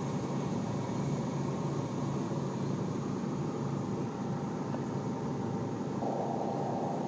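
Steady machine drone: a constant hum of several tones over a noisy rush. A higher part of the hum strengthens about six seconds in.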